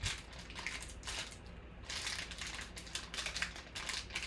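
Metallic foil card pack crinkling as it is pulled open by hand, in irregular crackles, with a sharp crackle at the start and more of them in the second half.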